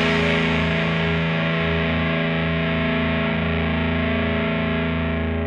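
Background music ending on a single distorted electric guitar chord that rings out and slowly fades.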